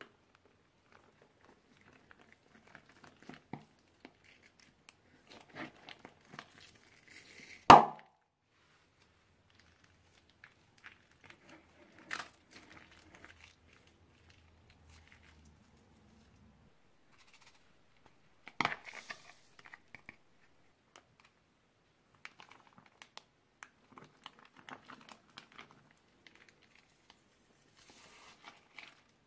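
Plastic bags crinkling and rustling as slime is worked with them, in scattered irregular crackles. Three sharp pops stand out, about 8, 12 and 19 seconds in, the first the loudest.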